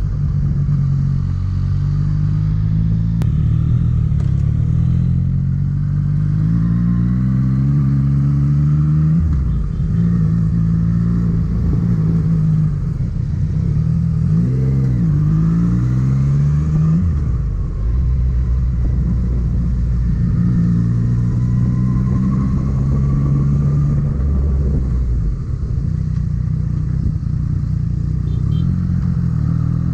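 Motorcycle engine heard from an onboard camera, pulling through the gears: the engine note climbs, drops back at each gear change and climbs again several times, over steady road and wind hiss.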